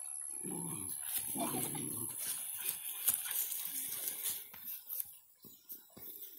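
Jack Russell terrier growling twice in play, short rough low growls about half a second and a second and a half in, with the ball in its mouth as the boy reaches for it.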